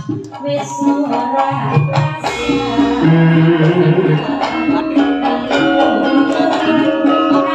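Live campursari music: a woman sings into a microphone over a band with gamelan and hand drums. The music grows fuller and louder about two seconds in.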